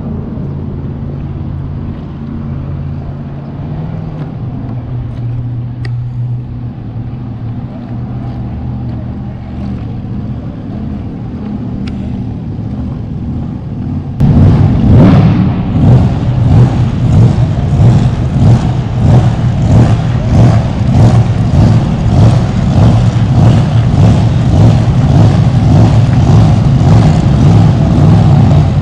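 Power-boat engines running as a steady low drone. About halfway through, a much louder, rough noise cuts in suddenly and pulses about twice a second.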